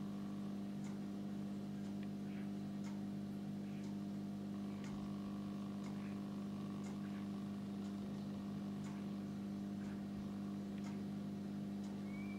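A steady low hum with faint, irregular ticks over it, and one short rising chirp near the end.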